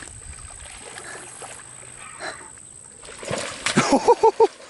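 Hooked alligator gar thrashing and splashing at the surface of shallow water as it is brought to the bank. The splashing is heaviest in the last second and a half, with a few quick vocal yelps over it.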